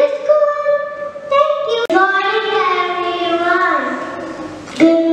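A young girl singing a rhyme in long held notes. There is a sharp click about two seconds in, and a new loud sung phrase starts near the end.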